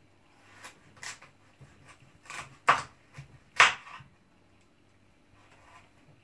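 Knife cutting meat on a wooden cutting board: a handful of irregular sharp knocks, the two loudest just under a second apart in the middle.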